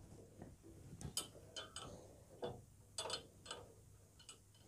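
Faint scattered clicks and taps of laboratory apparatus being handled: a metal clamp stand and a glass gas jar in a water trough.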